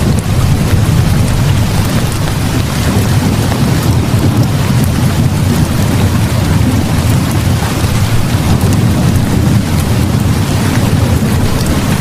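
Steady heavy rain with a continuous deep thunder rumble underneath, an unbroken rainstorm ambience.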